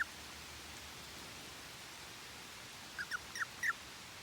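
An animal's short, high, squeaky calls, each sliding downward in pitch: four in quick succession about three seconds in, over a faint steady hiss.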